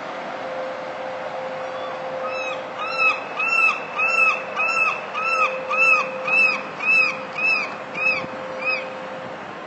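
A steady droning hum, the kind of 'strange sound in the sky' being recorded. Over it a bird gives a series of about thirteen short calls, each rising then falling in pitch, roughly two a second, starting about two seconds in and stopping near the end.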